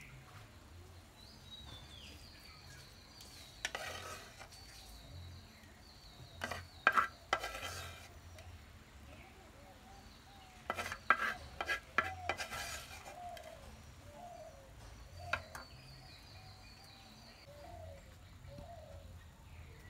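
A spoon scraping and clinking against clay pots as okra curry is mixed and served out, in a few short clusters of clicks and scrapes. Birds call softly in the background in the second half.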